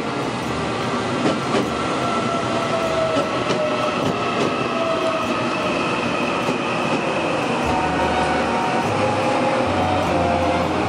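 Taiwan Railways EMU800 electric multiple unit pulling into the platform: steady wheel-on-rail running noise with several high whining tones that drift slightly in pitch as the cars slide past. A deeper rumble joins about eight seconds in.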